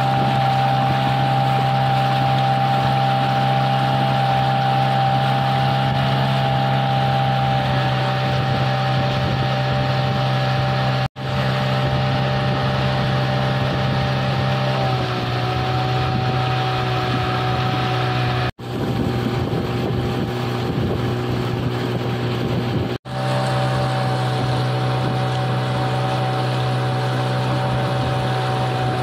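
Small outboard motor on the towing boat running at a steady speed, with water rushing under the towed hull. The engine note shifts slightly about halfway through, and the sound breaks off for an instant three times.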